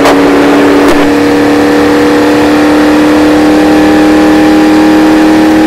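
Indy Lights single-seater race car's engine heard from the cockpit, held at about half throttle. A steady, loud note steps up slightly about a second in, then climbs slowly as the car gathers speed, with rushing wind beneath it.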